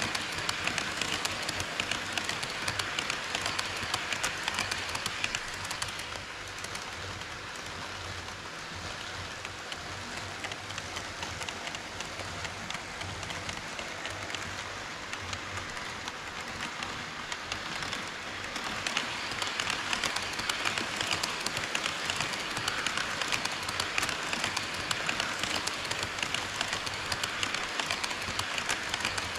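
HO-scale model train running on KATO Unitrack: a steady rattling clatter of small metal wheels on the rails, thick with fine rapid clicks. It drops somewhat quieter for a stretch in the middle, then comes back up.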